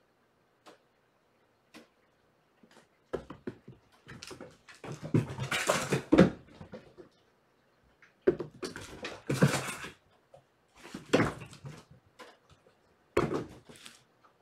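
Kittens running and tussling on a hardwood floor: four bursts of scrabbling paws, scuffles and thumps, with faint single taps before the first burst.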